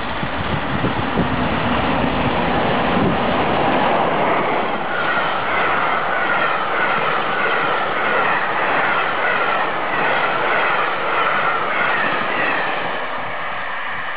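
A1 Pacific steam locomotive Tornado and its express train passing at speed. A heavy rumble swells in the first few seconds, then the coaches rattle past with a steady, repeating clatter of wheels on the rails.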